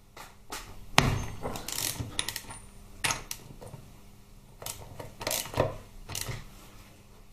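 A hand ratchet and socket working a nut on a Harley-Davidson Twin Cam engine's cam plate: irregular sharp metal clicks and clacks, the loudest about a second in.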